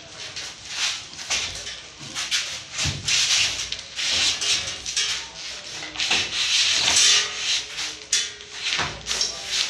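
Irregular rubbing and scraping strokes from hands working overhead at a ceiling fan mount, handling the cable and brushing the foil-faced ceiling insulation. The strokes are separate at first, run together into a dense scraping through the middle, then break up again.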